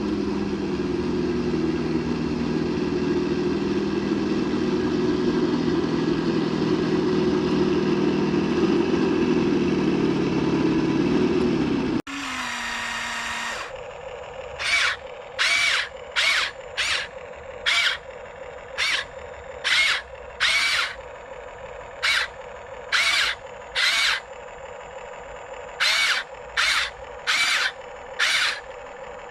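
Electric motor and gearing of a radio-controlled truck whining steadily as it drives, then stopping abruptly about twelve seconds in. After that come repeated short, shrill squawks, roughly one a second, over a faint steady hum.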